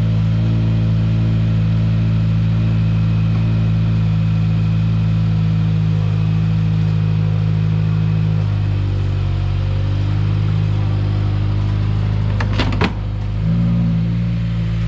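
2015 Subaru WRX's turbocharged flat-four engine running at low revs as the car creeps off the ramps, its note shifting slightly with small throttle changes. Near the end comes a short burst of sharp cracks: the new front lip catching on the ramp's edge and breaking.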